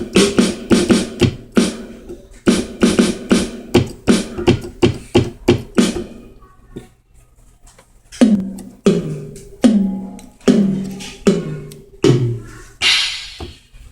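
Electronic keyboard's built-in sounds played from the keys: a fast run of sharp, percussive hits for about six seconds, then after a short pause about five separate hits, each dropping in pitch.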